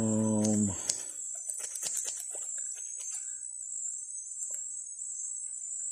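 Scissors snipping through beard hair in a scatter of short, sharp clicks, over a steady high-pitched insect drone; a brief hummed 'mmm' from the man opens it.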